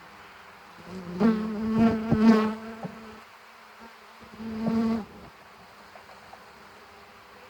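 Honey bees buzzing close to the microphone: two loud, pitched, wavering passes, about a second in and again about four and a half seconds in, over the faint steady hum of loose bees.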